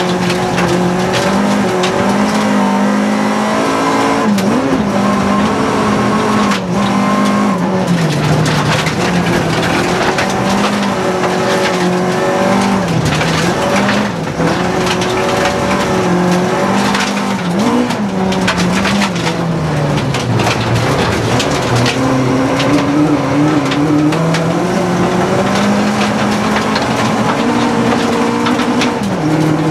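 Rally car engine heard from inside the cabin, revving hard and falling back repeatedly through gear changes and braking for corners on a gravel stage. Gravel and stones rattle and clatter against the car throughout.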